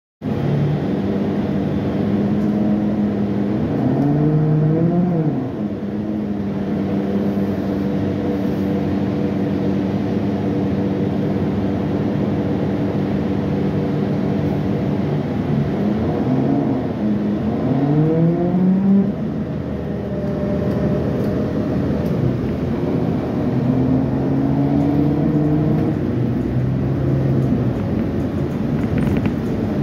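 Engine and drivetrain drone heard from inside a moving city bus, its pitch climbing as the bus accelerates about four seconds in and again a little past the middle, between steadier stretches of cruising.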